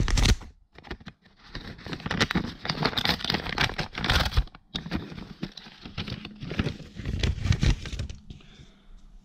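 Hands tearing open and rustling a paper mail envelope: crinkling and tearing in several bursts with short pauses, growing quieter near the end.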